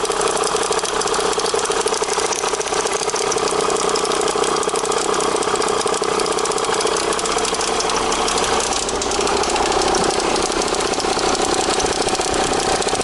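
Volvo XC70 engine idling with its accessory drive belt running, and an extraneous noise from the belt area that comes and goes. The noise is the sign of a failing drive-belt tensioner, together with a seized alternator overrunning clutch. The sound changes about nine seconds in, when a steady tone comes in.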